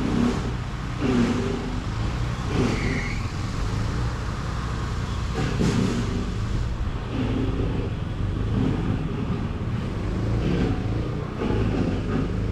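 An engine running steadily with a low, even hum, with irregular rougher noise over it.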